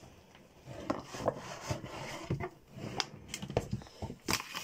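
Cardboard shoebox being handled and opened and a pair of shoes lifted out: a scatter of light knocks and scrapes with rustling between them.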